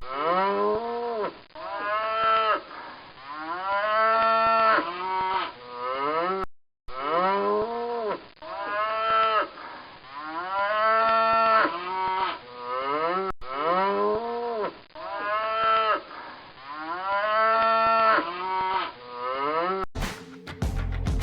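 Cattle mooing in a long series of calls, one after another. Each call rises and then falls in pitch, and there is a brief silent gap about six and a half seconds in. Guitar music starts about a second before the end.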